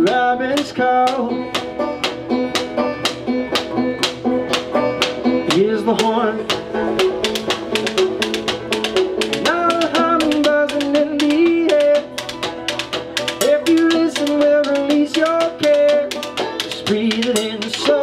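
String-band music: banjo picking and a slide guitar played flat on the lap, its notes gliding in pitch, over a steady beat of drumsticks tapping on a wooden chicken-coop crate.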